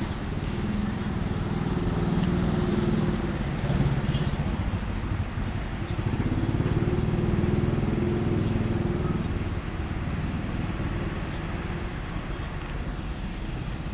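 Diesel locomotive engine rumbling with a low, pulsing beat, swelling twice and then easing off.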